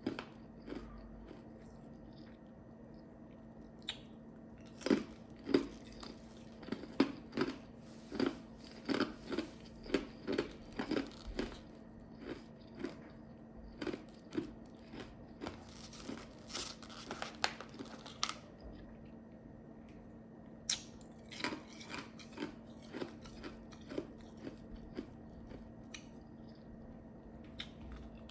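Ice chips being crunched and chewed in the mouth: a long run of short, sharp crunches, roughly one or two a second, with a pause about two-thirds of the way through. A steady low hum lies underneath.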